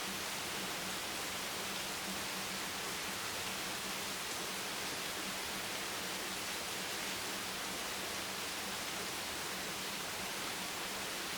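Heavy rain hammering steadily on a beach bench, a dense, even hiss of drops with no letup.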